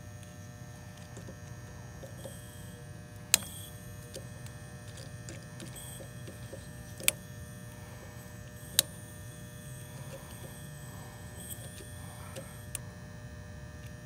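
Condenser fan motor of an older ICP outdoor unit running with a steady hum while its compressor stays silent and won't start. A tool at the service-valve port gives a few sharp metallic clicks, and refrigerant lets out brief faint hisses from the port.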